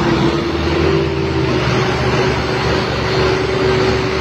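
Diesel engines of Sonalika tractors running under load as they haul a trailer through deep mud, a steady engine drone with a constant tone over it.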